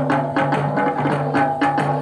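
Folk music: fast, even drumbeats, about five a second, over sustained melodic tones.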